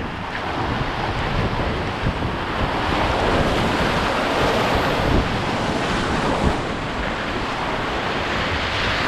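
Whitewater rapids rushing and splashing around a canoe as it runs through standing waves, with wind buffeting the microphone. The rushing grows louder about two to three seconds in as the canoe drops into the waves, with a few dull thumps.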